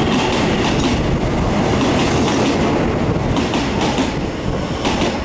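Taiwan Railway EMU700 electric train rolling past close alongside the platform as it comes into the station: a steady rumble of wheels on rails with scattered clicks as the wheels cross the rail joints.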